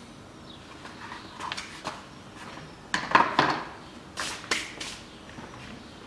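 Scattered knocks and clatters of the removed radiator cooling fan and its plastic shroud being handled. The loudest cluster comes about three seconds in, with a few sharp clacks about a second later.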